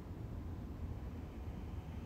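Steady low rumble of background room noise with a faint hiss. No distinct sounds stand out.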